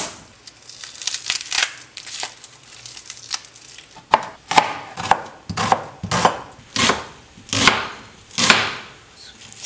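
Chef's knife slicing an onion on a cutting board: crisp cuts and knocks of the blade on the board. The strokes are light at first, then firmer at about two a second from about four seconds in.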